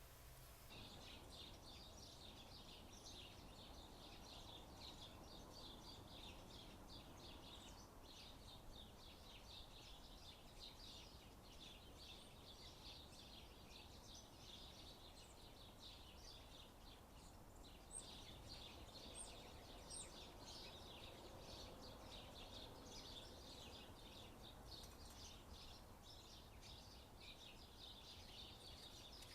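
Faint, steady chatter of many small birds chirping at a feeder, with a few sharper, higher calls about two-thirds of the way through.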